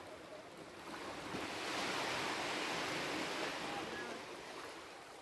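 Sea surf washing among shoreline rocks: one swell of wash rises about a second in and eases off near the end.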